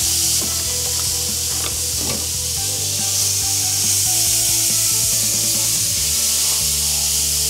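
Trout sizzling on a hot grill plate as they are laid down, a steady hiss with a few light knocks as the fish go onto the grate. Soft background music plays underneath.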